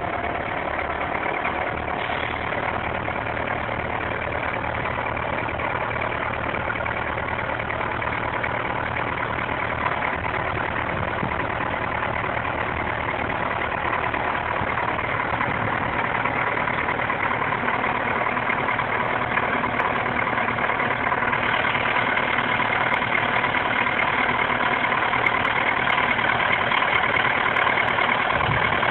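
Old dump truck's engine running steadily while the truck tips its load with the bed raised and its front end reared up off the ground; the engine grows a little louder after about twenty seconds.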